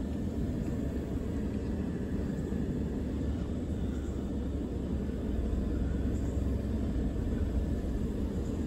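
Pickup truck rolling slowly along a dirt field track: a steady low engine and tyre rumble heard from inside the cab.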